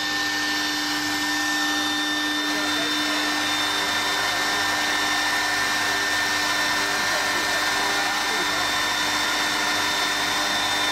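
CNC wood lathe spindle motor running steadily at full speed, an even whirring hiss with a constant high whine, as the program starts at a slow work speed.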